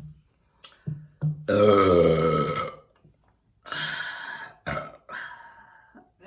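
A woman's long, loud burp about a second and a half in, drawn out for over a second, followed by a second, shorter burp about two seconds later and a brief trailing one.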